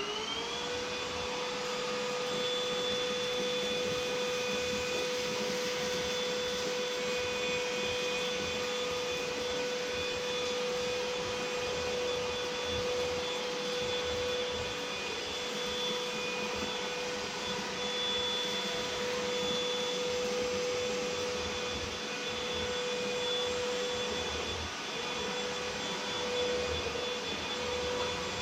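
Proscenic P8 cordless stick vacuum running in max mode, its motor reaching full speed just after the start and then holding a steady high whine over a rushing hiss of suction. The pitch dips briefly a few times near the end.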